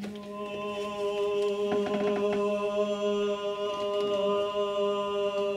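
A cappella singing of one long sustained note, held steady in pitch without vibrato, as part of a breath-and-resonance exercise.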